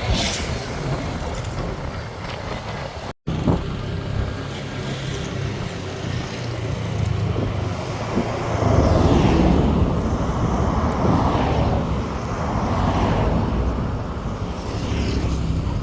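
A motor vehicle travelling along a road, with steady engine and road noise. It cuts out abruptly for a moment about three seconds in, then gets louder from about halfway through.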